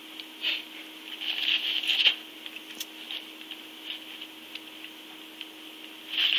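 Licking and rustling from one cat grooming another in a cardboard box: short rasping scuffs about half a second in, a longer run around two seconds in, and another near the end, over a steady hum.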